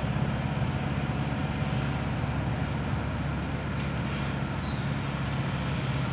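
Steady road and engine rumble heard from inside a moving car's cabin, with a passenger train running alongside the road.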